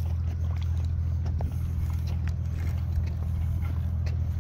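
A steady low engine drone, with faint scattered ticks over it.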